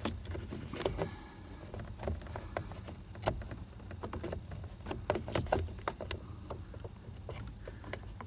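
Ignition lock barrel and its key being wriggled and pushed into the steering lock housing: irregular small clicks and knocks, a quick cluster of them about five seconds in.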